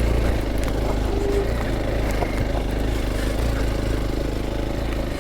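Hero Xpulse 200 4V motorcycle's single-cylinder engine running steadily at low revs.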